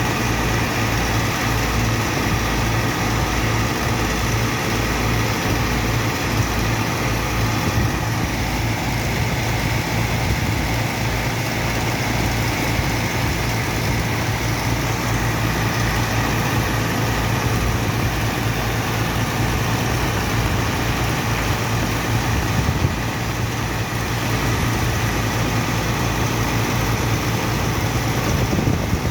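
Heavy engine running steadily at a constant speed: a deep hum with a steady hiss over it.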